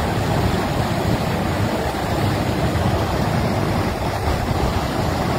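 A swollen river in flood rushing past: a steady, loud, low rushing noise.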